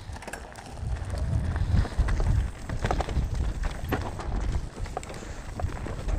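Mountain bike riding fast down a dry dirt trail: a low rumble of tyres and wind on the microphone that grows about a second in, with the bike rattling and knocking over bumps.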